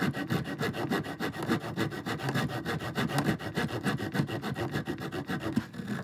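The small folding saw blade of a Flip Grip multitool cutting a 2x1 spruce-pine-fir board, worked in fast, even back-and-forth strokes, about six a second. The 1.5-inch blade bites slowly, and sawing through the board would take a very long time.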